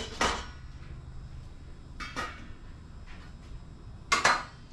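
Kitchen pots and dishes being handled: a clink right at the start, another about two seconds in, and a louder clatter of two knocks near the end, over a low hum that fades out early on.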